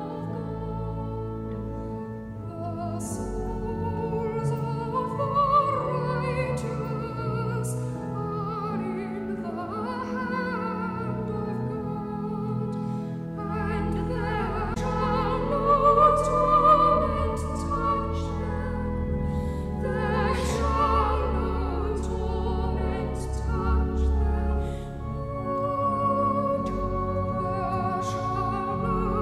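Sacred vocal music: voices holding long notes with vibrato over sustained organ accompaniment.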